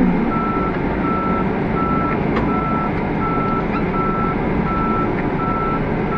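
A vehicle's reversing alarm beeping steadily, about one and a half beeps a second, over a running engine.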